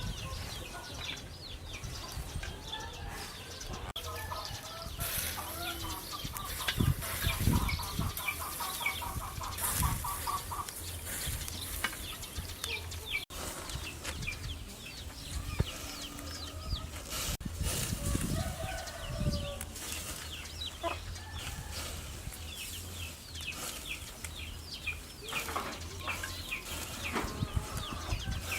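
Chickens clucking, with a fast run of clucks partway through, over many short high chirps and a few low thuds.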